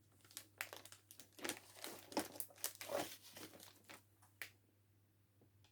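Packaging crinkling and rustling as the kit's pieces are handled and pulled out, for about four seconds before it stops.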